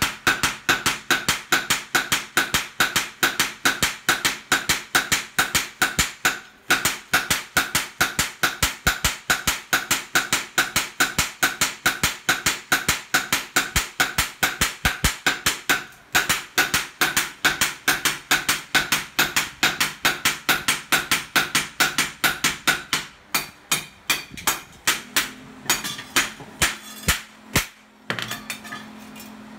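Two hand hammers striking a gyuto knife blade on a steel post anvil in quick alternation, a steady run of ringing metal clanks at about four to five blows a second. The hammering pauses briefly twice, then slows to scattered blows and stops near the end.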